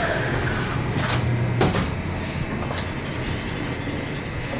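Claw crane machine running: a steady low motor hum with a few sharp clicks and knocks as the claw is being positioned.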